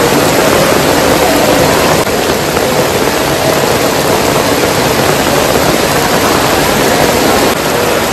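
Heavy rain pouring down, a loud steady hiss.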